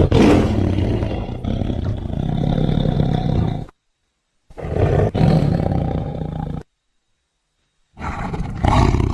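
Tiger roar sound effect, presented as the extinct Ngandong tiger: three long, deep roars, the first two each cut off abruptly by about a second of silence, the third starting near the end.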